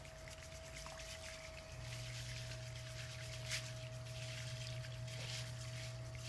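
Rice tipped from a metal colander into a pan of water, a steady pouring and splashing with a sharper splash about three and a half seconds in. A thin steady tone runs underneath.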